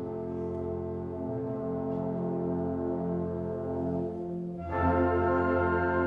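School wind ensemble playing sustained chords with brass to the fore, soft at first, then a louder, fuller chord enters about three-quarters of the way through.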